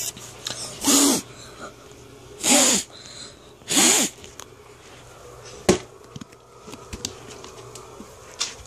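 Domestic cat hissing three times from inside a wire cage, short sharp hisses about a second and a half apart, then a single sharp click.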